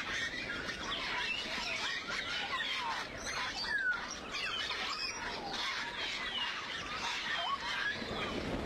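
Many small birds chirping together, with short rising and falling whistled notes overlapping throughout, over a steady low hiss of background noise.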